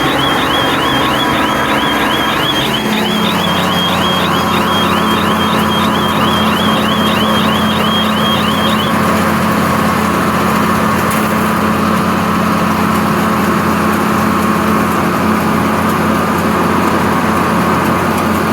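Kubota MX6000 tractor's diesel engine running steadily as it works a pine straw baler. A high, rapid chirping repeats about two or three times a second through the first half, then stops.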